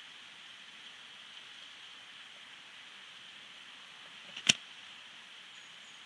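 Steady hiss of rain, broken by one sharp knock about four and a half seconds in.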